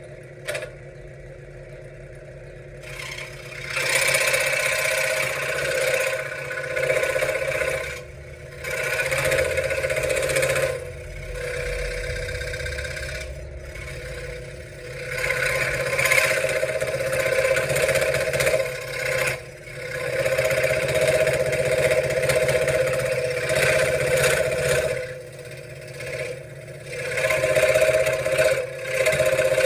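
Benchtop scroll saw running, its motor humming steadily while the reciprocating blade cuts wood in spells of several seconds. The cutting noise drops back briefly between spells. The first few seconds hold only the motor hum and a single click.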